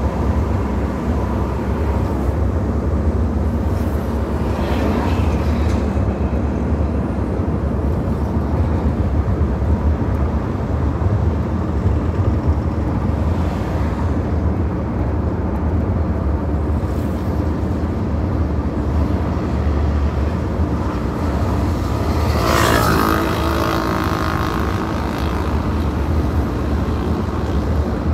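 Steady low rumble of a car's engine and tyres on the road, heard from inside the moving car's cabin. About three-quarters of the way through, a louder rushing sound with a brief engine note swells and fades.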